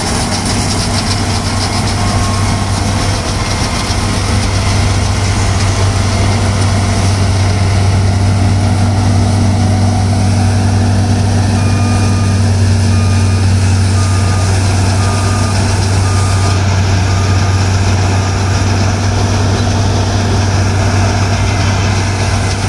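New Holland TC5 combine harvester running steadily with a loud low engine hum. Near the middle, an electronic warning beeper sounds about six times, roughly once a second.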